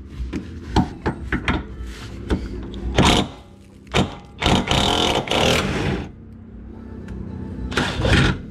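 Hand-tool work on a car: a string of sharp metal clicks and clanks. About four and a half seconds in, a power tool runs with a fast buzz for about a second and a half. Music plays in the background.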